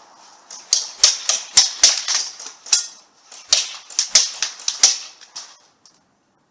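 Airsoft guns firing a rapid, irregular series of sharp cracking shots, a dozen or more, which stop about five seconds in.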